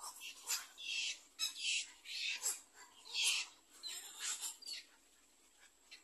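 Black-crowned night heron chicks giving harsh, raspy squawks in a quick, uneven series, a dozen or so over about five seconds, dying away near the end: hungry nestlings begging for food.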